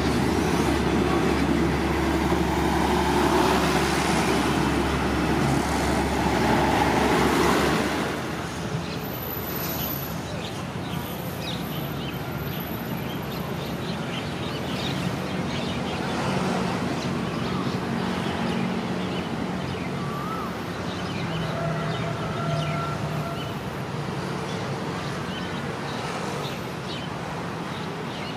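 Railway passenger coaches rolling past close by, their wheels and running gear making a loud, steady running noise with a low hum. About eight seconds in, the sound drops suddenly to a quieter, more distant noise of the train moving away, with a few faint short tones.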